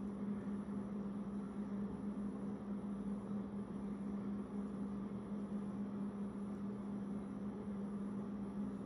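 A steady low electrical hum over a constant background hiss, unchanging throughout.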